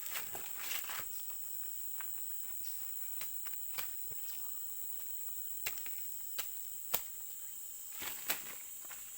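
Steady high-pitched drone of insects, with scattered sharp clicks and light rustles.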